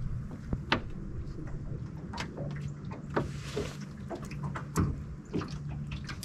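Water slapping and knocking against the hull of an aluminium fishing boat, a handful of separate knocks, over a low steady hum that grows a little stronger partway through.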